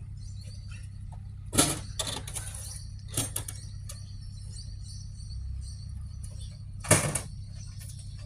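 Two loud sharp knocks, one about a second and a half in and one near the end, with a few lighter knocks between, over a steady low hum.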